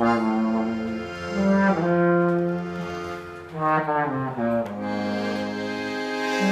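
Brass instruments playing together in held chords, the notes changing every second or two in short phrases.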